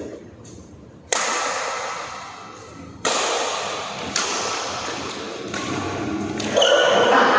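Badminton racket strings striking the shuttlecock three times in a rally, sharp cracks that ring on in the hall's echo. A louder, sustained sound starts near the end.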